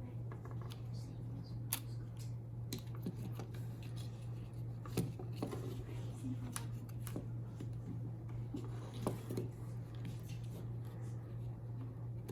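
Scattered small clicks and taps of the plastic parts of a SRAM Centera Grip Shift being handled and fitted, over a steady low hum.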